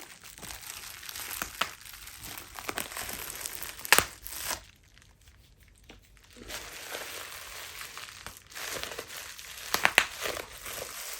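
Plastic bubble wrap being crinkled and squeezed, with sharp pops of bursting bubbles, the loudest about four seconds in and a few more close together near the end; the handling stops for about two seconds in the middle.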